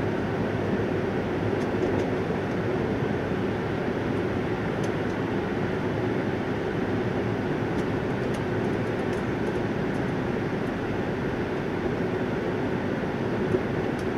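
Steady running noise of a Hayabusa Shinkansen heard inside the passenger car: an even rumble and hiss, with a few faint high ticks.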